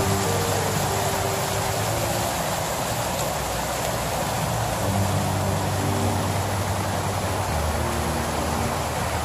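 Steady rushing of a small stream cascading over rocks, an even hiss of falling water. Low held notes of background music sit underneath.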